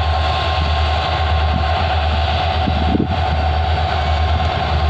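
Twin WDG4 diesel locomotives with EMD two-stroke engines running in a steady, loud drone as they haul a heavy goods train slowly into the yard.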